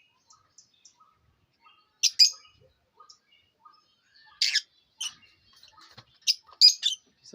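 Small caged parrots chirping: sharp, shrill calls about two seconds in and again halfway through, then a quick cluster near the end, with faint soft twitters between.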